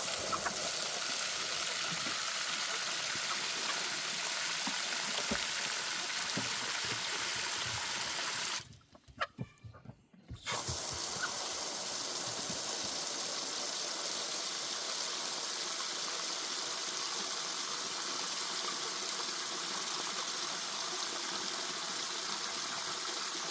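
Running water pouring steadily into chicken waterers to fill them. The flow stops for about two seconds a third of the way in, then runs again.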